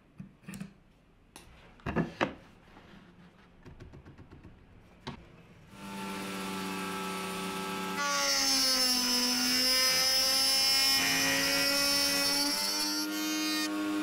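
A few clicks and taps as a router bit is fitted, then a table-mounted router starts running about six seconds in. From about eight seconds it cuts into ash, louder with the hiss of the cut and its pitch sagging a little under load, easing back up near the end.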